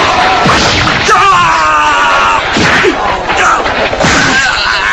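Cartoon fight sound effects: fighters shouting and straining, with several punch-and-kick impact hits and swishes.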